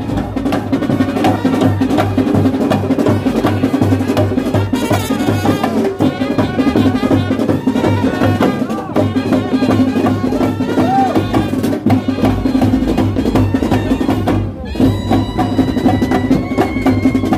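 A Kerala 'band set' brass band playing: drums beaten in a steady rhythm under held trumpet notes.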